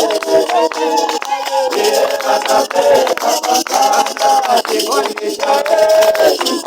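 Church congregation singing together in several voices, with sharp percussive hits throughout. The sound is thin, with no bass.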